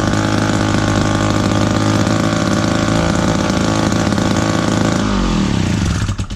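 David Bradley 360 (Sears 917.60003) gear-drive chainsaw's two-stroke engine running steadily at a fast idle, then slowing about five seconds in and dying near the end.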